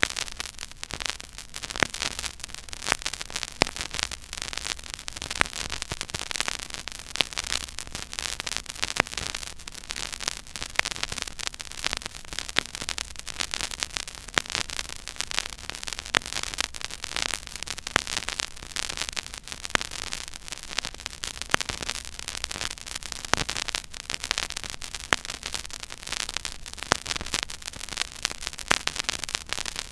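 Silent groove of a 12-inch vinyl record playing at 33⅓ rpm: steady surface hiss with dense crackle and frequent sharp pops from the stylus in the groove, over a faint low hum.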